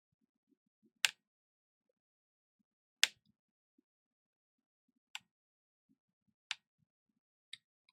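Five sharp little clicks, one to two seconds apart, from a pick scraping black underfill off the tops of small capacitors on an iPhone logic board.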